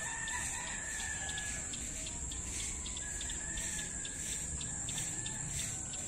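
Distant roosters crowing twice, one long held call at the start and another about three seconds in, over a steady high insect buzz.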